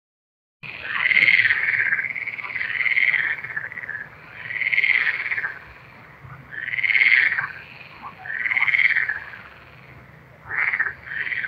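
A frog croaking: a series of calls about a second long, coming roughly every two seconds, then shorter, quicker notes near the end. It starts suddenly about half a second in.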